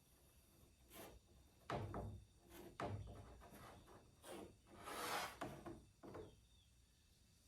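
Wooden parts being handled: a run of light knocks spread over a few seconds, with a brief scraping rub about five seconds in.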